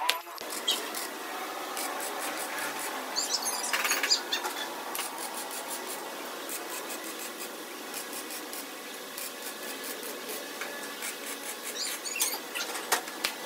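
Wire-feed (MIG) welding arc crackling steadily as square steel tubing is welded, with a few sharper bursts of crackle.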